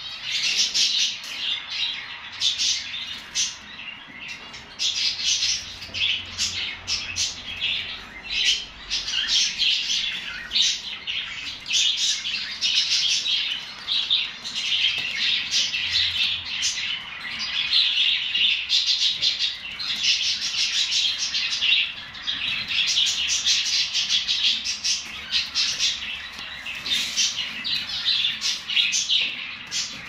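Caged common nightingales chirping continuously, a dense run of short high-pitched notes in quick succession.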